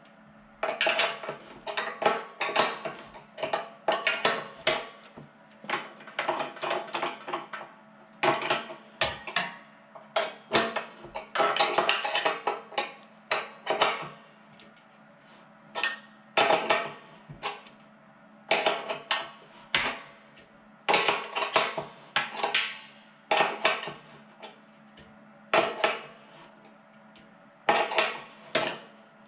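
Steel wrench clinking and clicking against nuts and bolts in repeated quick bursts, as the adjuster nuts on a steel motor-mount plate are worked to tension the compressor's drive belt.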